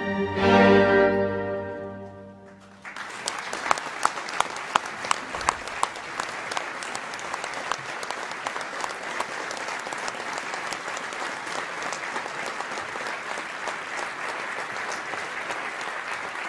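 A symphony orchestra's final chord rings and fades away over about two and a half seconds. Then audience applause breaks out, with many sharp claps at first, and goes on steadily.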